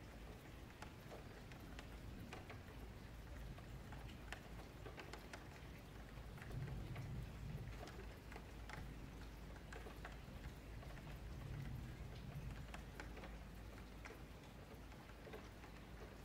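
Faint, irregular clicking of a computer mouse and keyboard, several clicks a second, over a low hum that swells twice.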